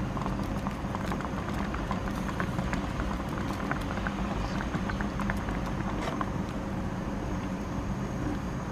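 Thick broccoli soup bubbling at a simmer in a pan, a steady seething with many small pops, over a steady low hum.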